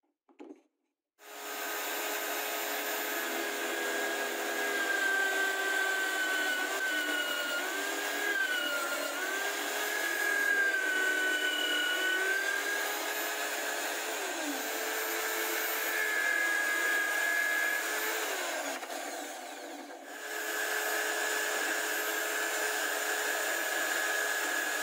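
Homemade drill press running and boring into a wooden block. Its motor whine sags in pitch and recovers several times as the bit loads up in the wood, drops away briefly about twenty seconds in, then runs steadily again.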